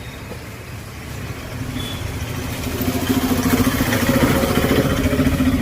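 Electric drill motor running on power fed through the switch being tested, a steady hum that grows louder about two seconds in. The drill running shows the switch is working.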